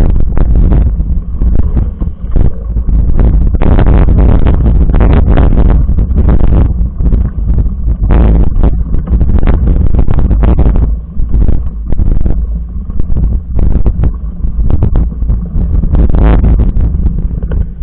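Wind buffeting the microphone during a mountain-bike ride on a trail: a loud low rumble throughout, with frequent irregular knocks and rattles from the bike over rough ground.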